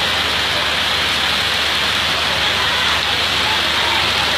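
Heavy rain pouring down in a steady hiss, with streams of water falling through holes in a railway platform shed's roof onto the platform.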